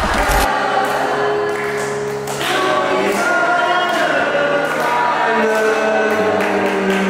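Music with a group of voices singing together, choir-like, over held chords; the deep beat of the music drops out about half a second in.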